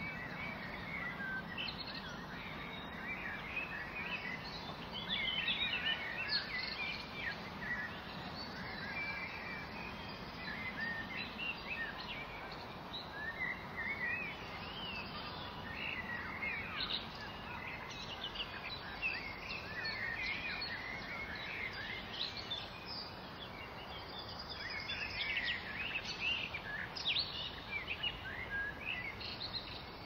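Several songbirds chirping and singing over a steady hiss of wind through grass, the chirping busiest around five to seven seconds in and again near the end.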